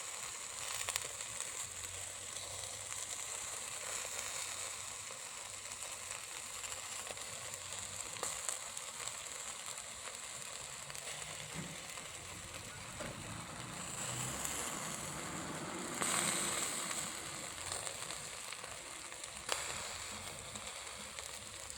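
Chicken pieces sizzling on a hot grill: a steady crackling hiss of fat and marinade cooking, swelling a little about two-thirds of the way through.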